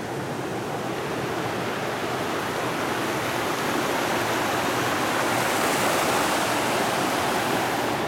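Rushing creek water running over rocks, a steady noise that grows louder about halfway through.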